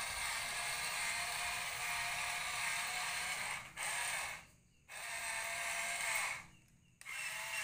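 Remote-control toy excavator's small electric motors and plastic gearboxes whirring as it drives and turns. The whirring stops briefly twice, once about halfway through and once near the end, as the buttons are let go.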